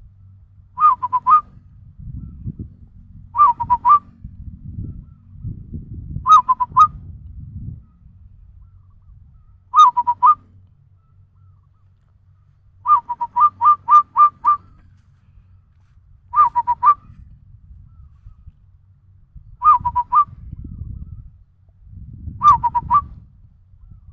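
A person imitating the cooing call of a zebra dove (perkutut) by mouth: short phrases of a few quick, bubbling notes, repeated about every three seconds, with one longer run of about six notes near the middle.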